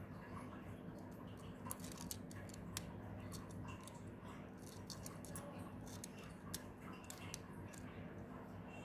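Small plastic LEGO bricks clicking and tapping as they are handled and pressed together on the model, in scattered sharp clicks over a faint steady hum.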